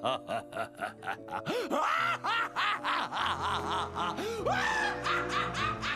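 A man's maniacal cackling laughter in quick repeated bursts, about five a second at first and then with pitch swooping up and down. Dramatic music with sustained low notes plays under it.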